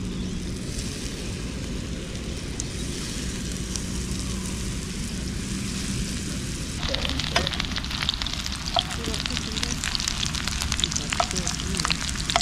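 Pieces of fresh-caught fish frying in a hot pan: a steady low hum at first, then a sudden burst of sizzling and crackling about seven seconds in that keeps going.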